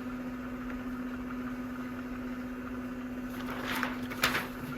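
A dog coughing twice in quick succession about three and a half seconds in, the second cough louder, provoked by massaging its trachea. A steady low hum runs underneath.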